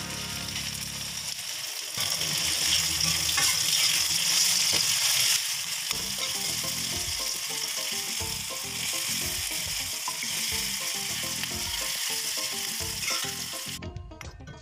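Chopped onions and chillies sizzling in hot oil in a steel wok, with a metal ladle stirring and scraping now and then. The sizzle is loudest about two to five seconds in and cuts off just before the end, where music takes over.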